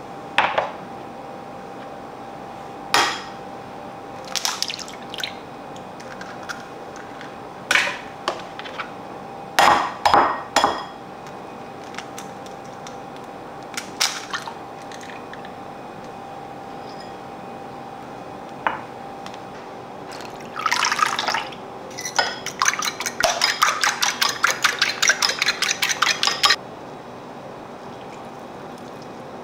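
Eggs being cracked on the rim of a ceramic bowl: scattered sharp taps and shell cracks, a few at a time. Near the end a fork beats the eggs in the ceramic bowl, a fast, even run of clinks lasting about four seconds.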